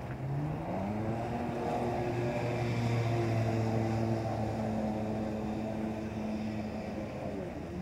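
Personal watercraft (jet ski) engine revving up as it pulls away, its pitch climbing steeply over the first second and a half, then running steady at speed before dropping in pitch near the end.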